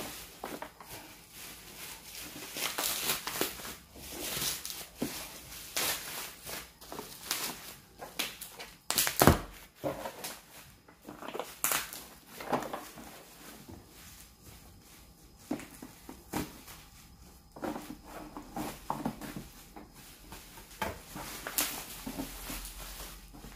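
Wrapping on a cordless drill's parcel being opened by hand, with irregular rustling, crinkling and handling noises. One sharp knock about nine seconds in is the loudest sound.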